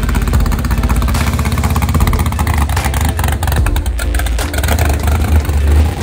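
Engine of a race-built Pontiac GTO drag car running at a steady, loud idle.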